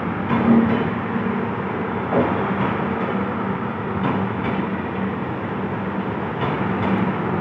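Passenger train rolling along the rails: a steady rumble with a few sharp clicks spaced a second or two apart.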